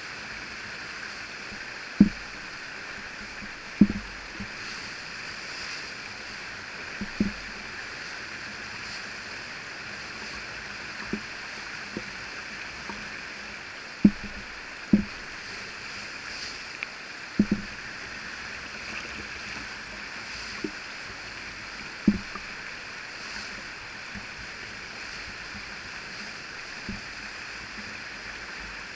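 Steady rushing whitewater of a river standing wave, broken by sharp low thumps at irregular intervals, a few seconds apart.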